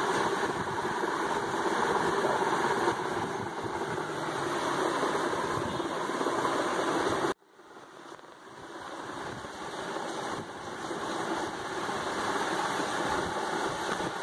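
Steady engine-like running noise. It cuts out abruptly about seven seconds in and fades back up over the next few seconds.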